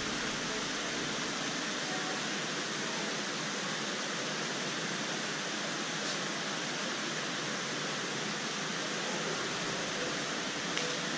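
Steady, even hiss of a large indoor shopping-mall hall's background noise, with no voices standing out.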